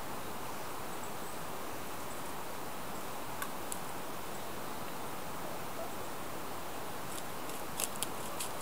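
Steady hiss of outdoor forest background, with a couple of faint ticks around the middle and, near the end, several crackles of dry leaf litter being stepped on.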